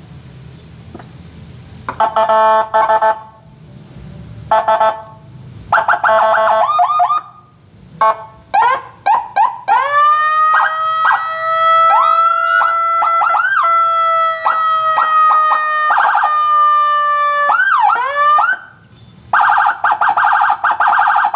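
200-watt electronic siren with Whelen-style tones being run through its tones: three short blasts of a steady horn tone, a string of quick chirps, then a long held tone broken by dips and swoops, and a fast pulsing tone near the end. A low rumble sits under the first two seconds before the siren starts.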